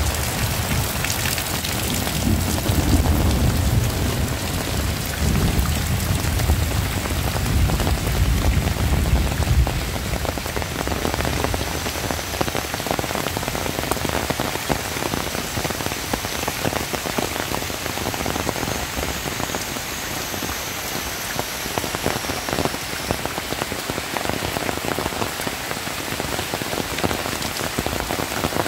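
Heavy rain falling steadily in a dense hiss. A low rumble runs under it for the first ten seconds or so, then fades.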